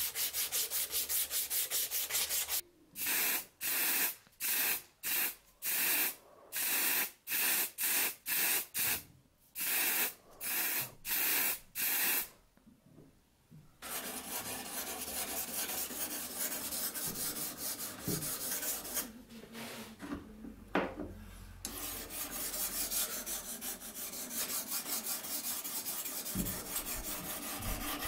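Strip of abrasive cloth pulled back and forth around a wooden knife handle, sanding it: first fast continuous rubbing, then about fifteen separate strokes. After a short pause, a stone on a guided knife-sharpening rig scrapes back and forth along the steel blade, sharpening it.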